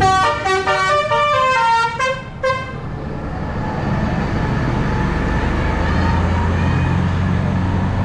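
A tour bus's telolet horn, a set of musical air horns, plays a quick run of stepping notes for about two and a half seconds. Then the bus's diesel engine runs as it pulls away, growing a little louder.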